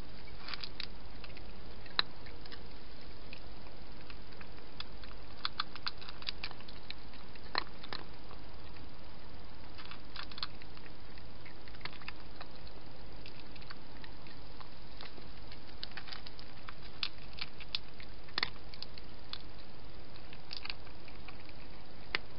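Animals eating at a garden hedgehog feeding station: scattered small crunching clicks of chewing, some in quick runs, over a steady background hiss.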